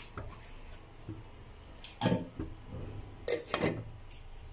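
Glass lid being set on a metal cooking pot of boiling dal: a sharp clink against the rim about two seconds in, then two more clinks close together near the end as it settles.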